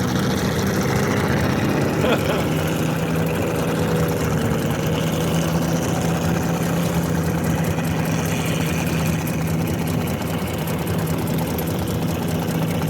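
Boat engine running steadily with an even low hum.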